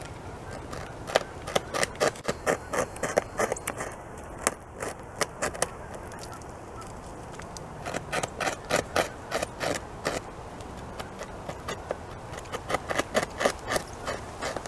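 Beaver gnawing into a small tree trunk close up: runs of rapid scraping bites of its incisors on the wood, about four a second, pausing twice between runs.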